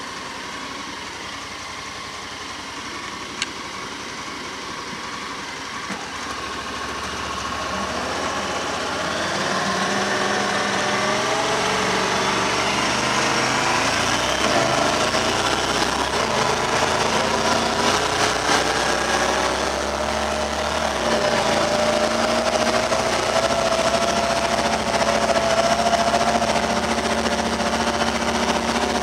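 Honda Pioneer 1000 side-by-side on snow tracks driving, its parallel-twin engine running. The engine grows louder and rises in pitch about a quarter of the way in, then wavers up and down with the throttle.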